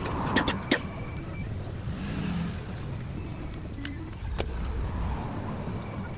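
A few sharp clicks and taps from small hard parts being handled, about half a second in, again just after, and twice near the middle, over a steady low rumble.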